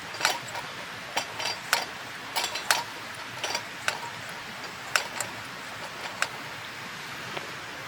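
Wood fire crackling: irregular sharp pops and snaps from burning firewood over a steady hiss, thinning out near the end.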